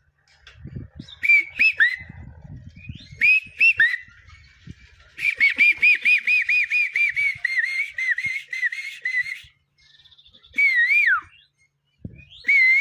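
A man imitating an Asian koel's call, whistling through his cupped hand: a few short whistled phrases, then a long run of quick rising-and-falling notes at about four a second, and two single slurred calls that drop in pitch near the end.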